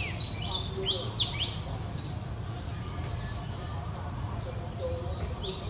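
Small birds chirping: quick, high chirps that sweep downward, coming in clusters with short gaps, over a low steady background rumble.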